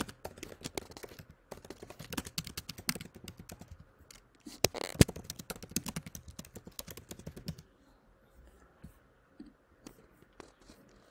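Typing on a computer keyboard: a quick run of keystrokes that stops about two-thirds of the way through, followed by a few scattered clicks.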